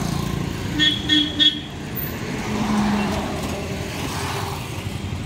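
A horn tooting three short times in quick succession, about a second in, over a steady low rumble.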